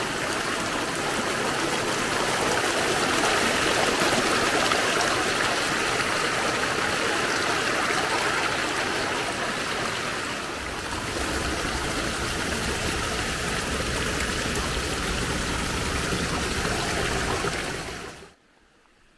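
Small mountain stream rushing and splashing over rocks, heard close up: a steady rush that takes on a deeper rumble about halfway through. It cuts off suddenly near the end.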